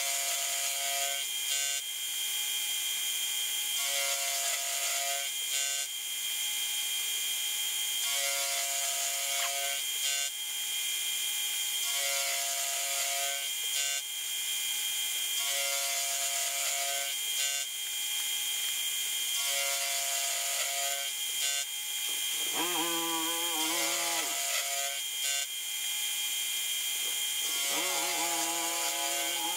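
Milling machine cutting 45-degree ratchet teeth into A2 tool steel, sped up sevenfold: a steady high-pitched spindle whine, with a cutting tone that comes and goes about every four seconds.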